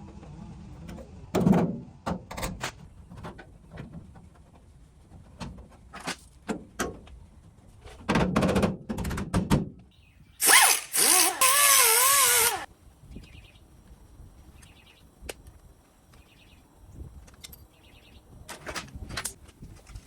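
Metal workshop sounds while patch panels are being made: scattered knocks and clicks of handling, and a power tool running hard in a burst of about two seconds near the middle, its pitch wavering under load.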